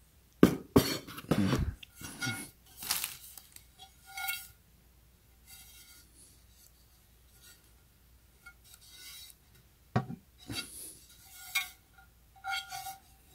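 Henckels Capri Granitium aluminium frying pans knocking and clinking against each other as they are handled, some knocks followed by a short metallic ring. A cluster of knocks comes in the first few seconds, then quieter handling, then more clinks near the end.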